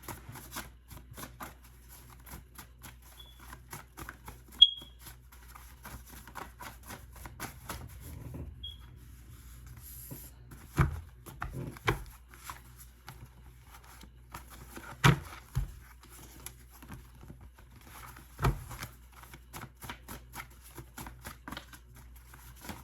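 A deck of reading cards being shuffled and handled: a steady run of light clicks and flicks with a few heavier knocks as cards are set down. A short high beep sounds about four to five seconds in.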